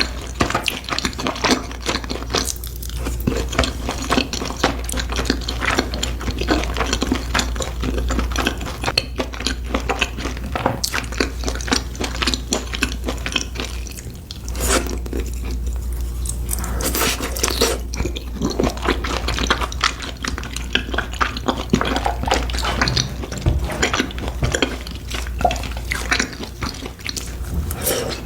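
Close-miked chewing and crunching of food, a dense run of wet clicks and crackles with occasional clinks of dishes or cutlery, over a steady low hum.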